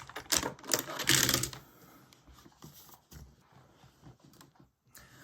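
Keys clicking on a distraction-free typewriter's keyboard: a quick flurry of clicks in the first second and a half, then a few faint scattered clicks.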